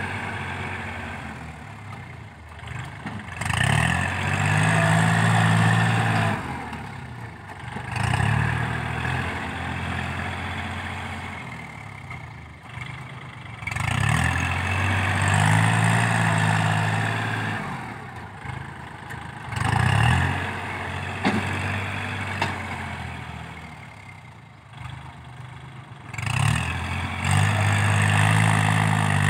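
Kubota L4018 tractor's diesel engine working as its front blade pushes soil, swelling louder in repeated pushes of a few seconds and dropping back between them.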